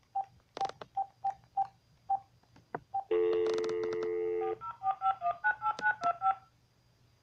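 Telephone being dialled: a string of short keypad beeps, then a steady dial tone for about a second and a half, then a quick run of about ten touch tones as the number dials out.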